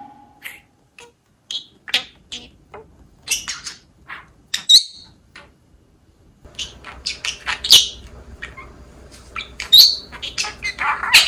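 A pet budgerigar and a green-cheeked conure chirping and squawking in scattered short calls, with a few quick rising whistles.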